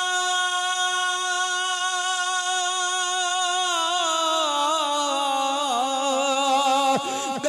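A man singing a devotional song into a microphone over a sound system. He holds one long steady note for several seconds, then breaks into a wavering, ornamented run that slides a little lower, with a short catch of breath near the end.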